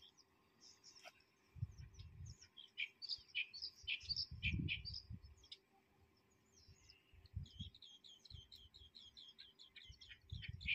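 Small birds chirping and calling, with a fast run of evenly repeated chirps near the end. A few brief low rumbles come in between.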